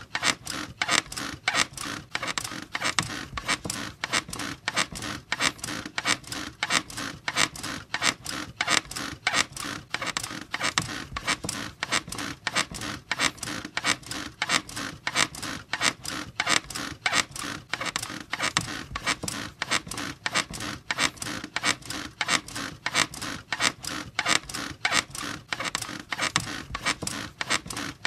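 A bed squeaking over and over in a steady, fast rhythm, as if rocked back and forth, each squeak a short scratchy creak.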